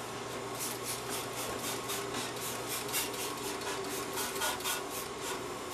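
Hand trigger spray bottle squirting parts cleaner onto a lawnmower deck, a quick run of short hissing squirts, several a second.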